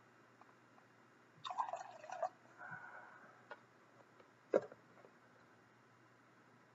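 Water poured out of a small plastic cauldron into a glass measuring cup: a short splashing trickle about a second and a half in, then a faint trickle and a single sharp drip a little later.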